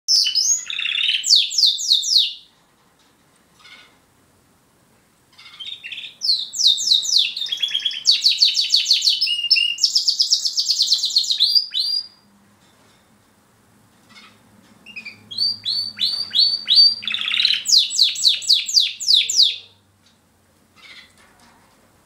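Border canary singing: three loud phrases of fast, repeated high trilling notes, separated by pauses of a few seconds.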